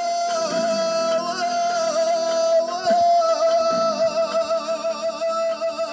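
Arabic song: a voice holds one long note that wavers up and down, over instrumental backing.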